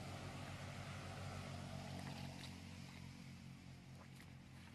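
A steady low engine hum under an even hiss.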